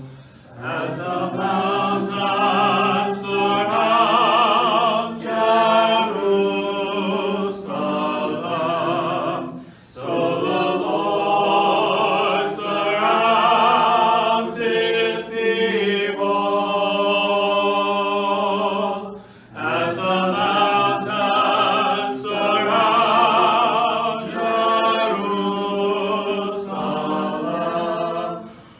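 Choir of mixed voices singing a hymn a cappella, with no instruments, in long held phrases. There are brief breaks between phrases about ten seconds in and again near twenty seconds.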